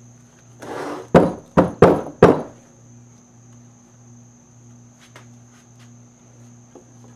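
Four sharp taps in quick succession on a valve spring compressor bolted over the valve springs of an LS 243 cylinder head, knocking the valves down so the keepers come free, after a brief rustle.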